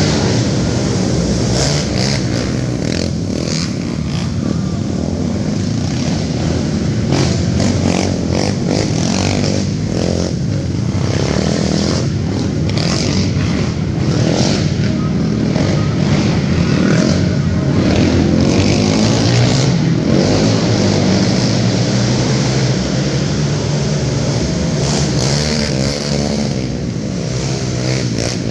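Youth-class racing ATV engines running hard through a heat, revving up and down continuously.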